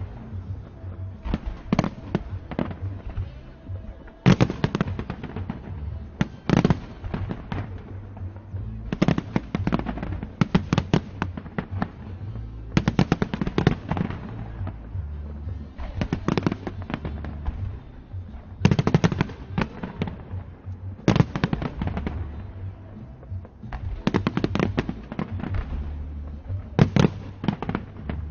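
Fireworks display going off without pause: tight clusters of sharp bangs and crackling come every two to three seconds over a constant low booming rumble.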